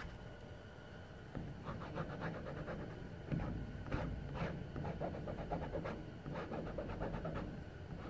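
Plastic vinyl-wrap squeegee rubbed in short, irregular strokes over a vinyl stripe, pressing it down onto the aircraft skin.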